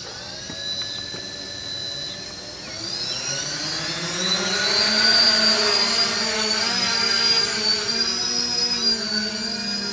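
Hexacopter's six Avroto 770kv brushless motors with Graupner 11x5 propellers spinning on the ground, then spooling up about three seconds in as it lifts off. Steady whine whose pitch wavers as the motors adjust in flight.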